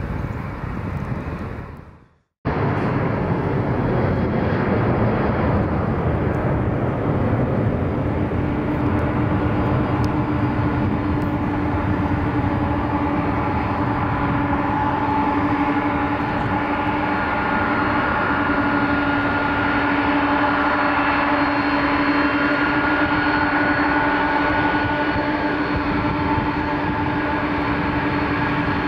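Aircraft engines running steadily: a loud rush with several steady whining tones on top. The sound drops out briefly about two seconds in and comes straight back.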